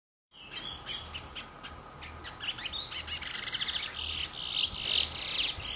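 Caged songbirds chirping, a run of quick sharp calls giving way to longer trilling song phrases from about four seconds in.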